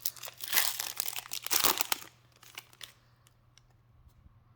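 Foil wrapper of a Pokémon trading card booster pack crinkling as it is torn open, for about two seconds, then a few faint ticks.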